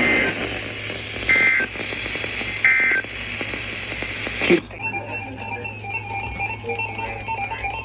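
EAS end-of-message data bursts: three short, identical two-tone digital squawks about 1.3 s apart over radio hiss, closing the alert. About four and a half seconds in, a sharp click cuts the hiss off and a beeping electronic tune begins.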